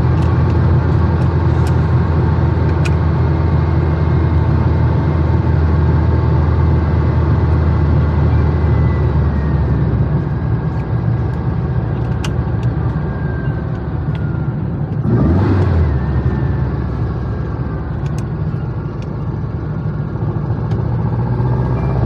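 Air-cooled flat-four engine of a VW Beetle heard from inside the cabin while driving, with tyre noise on the wet road. The engine note falls and eases off in the middle, there is a brief whoosh about 15 seconds in, and the engine picks up again near the end.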